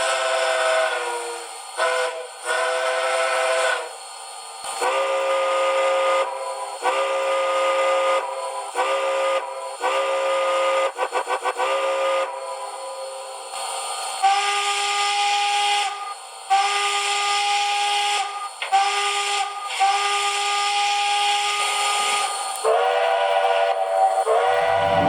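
Model steam locomotive chime whistle sounded by a TCS WOW Sound DCC decoder through the model's small speaker: a series of long and short blasts with a hiss of steam, including a rapid run of short toots about eleven seconds in. The whistle switches between several different chords along the way.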